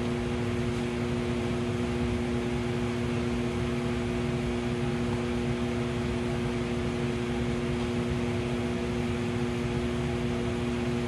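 Steady electrical hum with an even airy hiss, typical of a shop fan or similar electric machine running, with no work sounds from the chalk marking.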